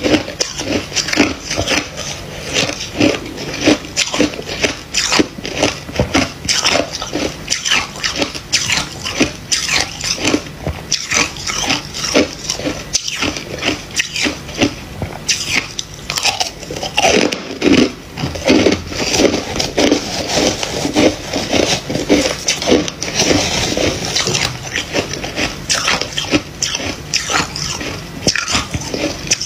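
Freezer frost being chewed and crunched close to a clip-on microphone: a dense, continuous run of crisp crunches.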